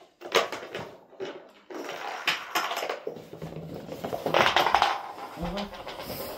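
A small hard object clattering and skittering over a wooden floor as a cat pounces on it and bats it about, in a run of quick knocks and rattles.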